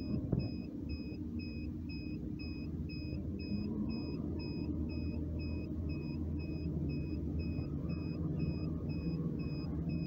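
Steady low machine hum and rumble from equipment running at a telecom site, with a faint high electronic beep repeating about twice a second.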